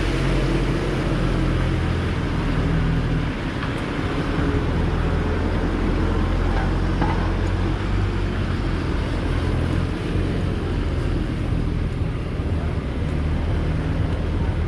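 Street traffic in heavy rain: a steady low engine rumble from vehicles, with a constant wash of rain and wet-road noise over it.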